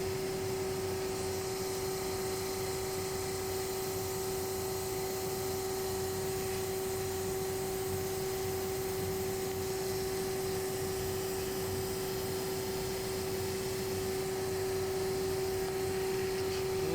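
Steady machine hum with a constant mid-pitched whine, unchanging throughout.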